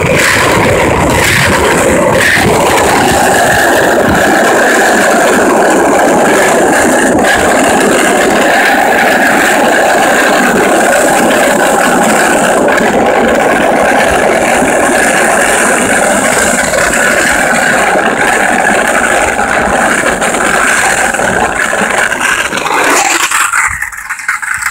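Wheels rolling over rough, cracked asphalt: a loud, steady rolling noise with rattling, which drops away shortly before the end as the rolling stops.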